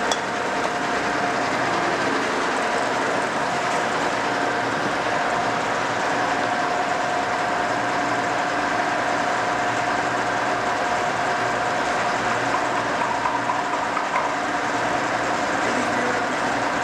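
Cincinnati No. 5 heavy-duty vertical milling machine running under power with its spindle turning: a steady whirr with several steady tones held over it, unchanging throughout.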